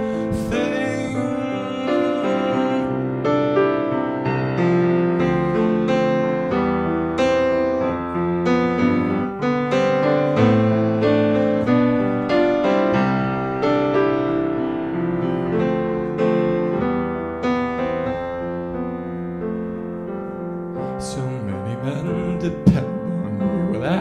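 Grand piano playing an instrumental passage without voice: a steady run of chords and melody notes, each ringing on into the next. Near the end a few short sharp sounds cut in, the loudest a single click.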